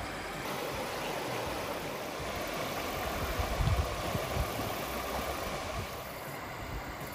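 Shallow, rocky creek rushing over stones in a riffle: a steady hiss of running water, with some low rumbling around the middle.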